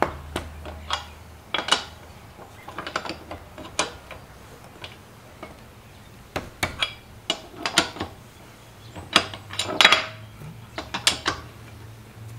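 Steel tire iron clinking and scraping on the wheel's lug nuts as each nut is fitted and snugged up in turn. Irregular sharp metallic clicks come in small clusters, with a longer scrape near the end.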